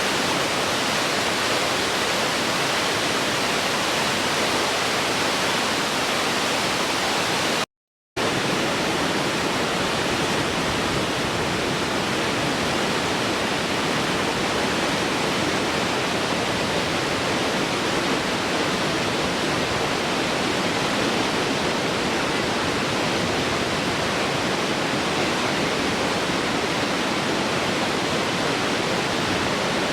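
Waterfall rushing in a steady, dense roar of falling water. It cuts out completely for a moment about eight seconds in.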